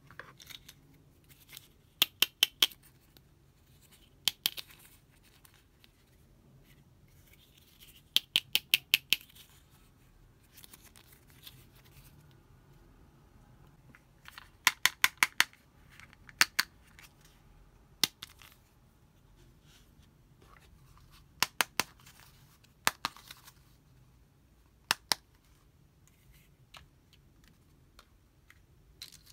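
Sharp, crisp clicks in quick runs of three to six, each run a few seconds apart.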